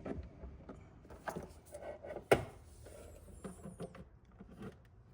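Handling noises in a small room: a scatter of small knocks and clicks, with one louder knock a little over two seconds in.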